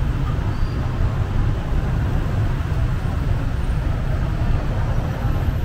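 City street traffic ambience: a steady low rumble of vehicles on the road beside the sidewalk.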